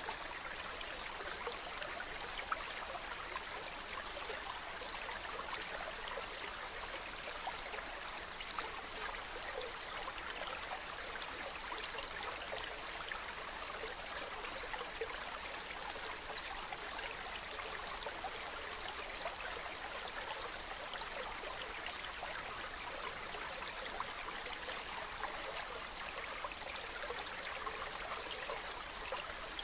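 Stream running over rocks: a steady babble of flowing water with small splashes.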